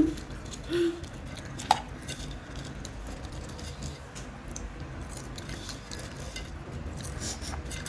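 Faint scattered clicks and rustles of fingers picking snacks out of a snack cup, and of crisps being chewed, with one sharp click about two seconds in.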